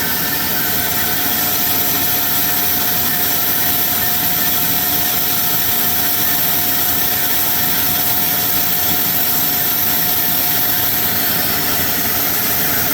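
Large dual-column horizontal bandsaw running steadily while its blade cuts through a metal round bar, a constant mechanical hum with a faint steady tone.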